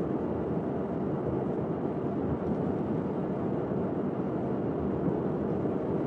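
Steady road and engine noise inside a moving car.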